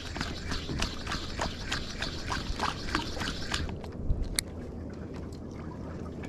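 A rapid, even series of sharp clicks, about three a second, over a steady low hum. The clicking stops about three and a half seconds in, and a single sharper click follows.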